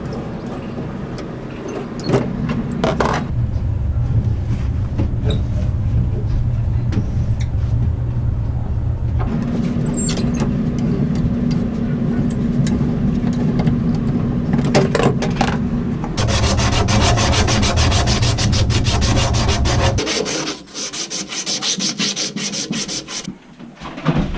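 Electric power tool running under load against material, with a scraping, sanding-like sound. It goes in several long stretches at changing pitch, then turns stop-and-start for the last few seconds.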